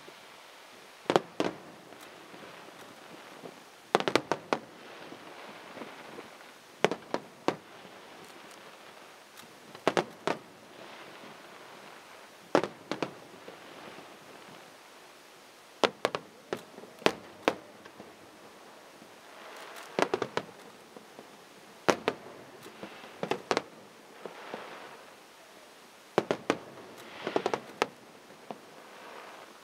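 Aerial firework shells bursting: sharp bangs every few seconds, often two or three in quick succession, some followed by crackling.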